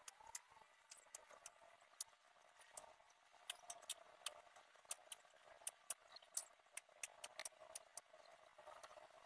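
Near silence broken by faint, irregularly spaced sharp clicks and ticks, over a faint steady hum.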